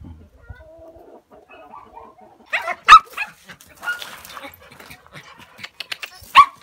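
Faint hen clucking, then a dog barking: a loud cluster of barks about two and a half to three seconds in, and another sharp bark near the end.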